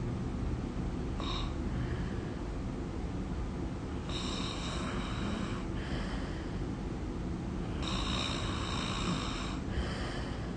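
A person snoring: two long noisy breaths of about two seconds each, roughly four seconds apart, with a shorter one about a second in, over a steady low rumble.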